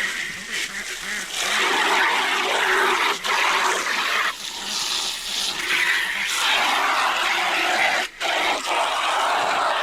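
Water running hard from a hose, a steady rushing with a few brief breaks.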